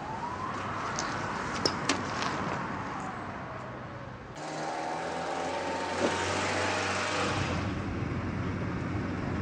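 Night street ambience with a distant siren slowly wailing up and then down, and a couple of sharp clicks. About four seconds in it cuts abruptly to the steady hum of a car engine heard from inside the car as it drives.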